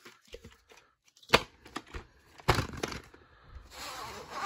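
A cardboard VHS slipcase being handled, with a few sharp clicks and knocks. Near the end there is a short scraping hiss as the plastic cassette slides out of the sleeve.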